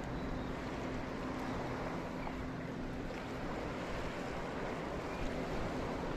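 Steady outdoor noise of water and wind at the shoreline, with a distant motor's low hum that fades out about halfway through.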